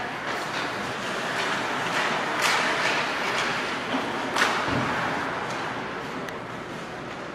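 Ice hockey play heard at rink level: a steady hiss of skates on the ice mixed with arena noise. Sharp knocks from sticks, puck and bodies come through it, the loudest about four and a half seconds in.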